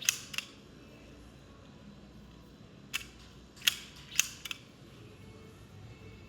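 Sharp metallic clicks of a firearm being handled and its action worked. Two come at the very start, then a group of about four from roughly three to four and a half seconds in.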